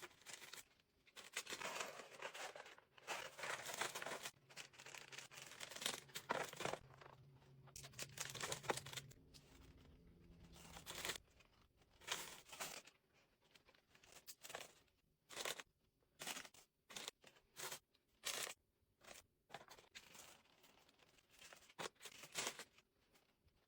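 Tissue paper rustling and crinkling as it is handled, in long stretches during the first half and then in short separate crackles.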